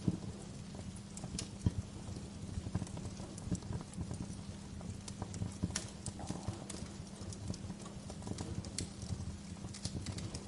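Wood fire crackling in a fireplace: irregular sharp pops and snaps over a low steady rumble of the flames.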